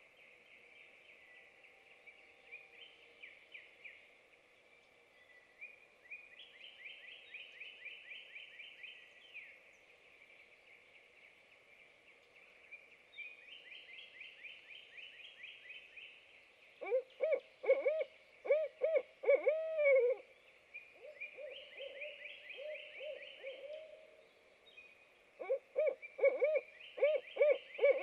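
Barred owls calling back and forth with their 'who cooks for you, who cooks for you-all' hoots: a loud series of hoots past the middle ends in a drawn-out falling 'all', a fainter series answers, and another loud series starts near the end. A higher-pitched rapid trill repeats every few seconds throughout.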